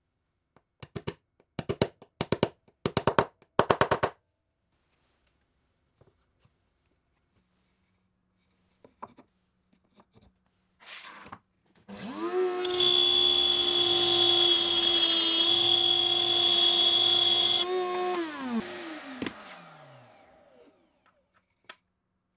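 A run of sharp clicks and taps in the first few seconds. Then a table-mounted router starts up, runs at full speed with a steady high whine for about six seconds while a slot is routed in a plywood strip, and is switched off, its pitch falling as it winds down.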